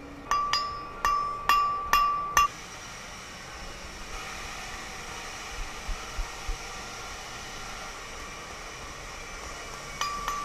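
Hammer blows on a steel anvil, each strike ringing out: about six quick blows in the first two and a half seconds, a few faint taps around the middle, and more ringing blows near the end, as a hot iron bar is forged.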